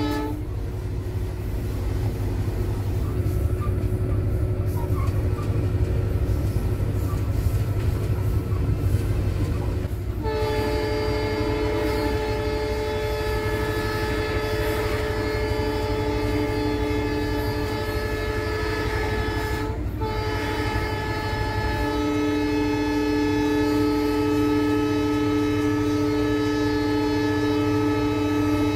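Cab noise of an EMD GT46PAC (WDP4) diesel-electric locomotive running at speed: engine and rail rumble. About ten seconds in, the locomotive's horn sounds a long, steady chord of several notes. It breaks off for a moment about twenty seconds in and then sounds again, held on.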